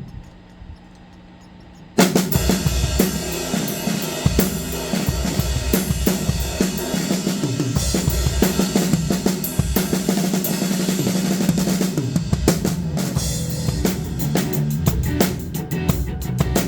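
Drum kit played in a driving beat with bass drum, snare and cymbals over the rest of the music, kicking in suddenly about two seconds in after a low steady hum.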